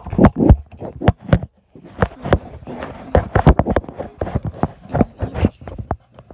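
Handling noise from a phone held up close as it is moved about: a quick, uneven run of knocks, bumps and rustles.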